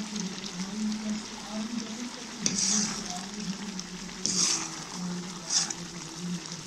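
Carrot halwa sizzling in a large aluminium pot as desi ghee is poured in and a metal ladle stirs and scrapes through it, with three short, louder scrapes in the middle and near the end over a steady low hum.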